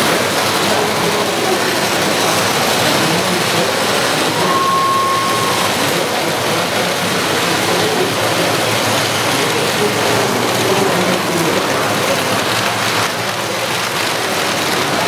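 Several model trains running at once on the layout's metal track, wheels rattling and clattering in a steady rushing noise. A short, steady whistle tone sounds about four and a half seconds in.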